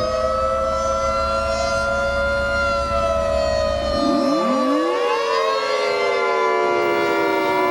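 Several outdoor civil defense warning sirens wailing together at slightly different pitches, slowly rising and falling. A low rumble underneath stops about four seconds in as another siren winds up, and the pitches fall toward the end.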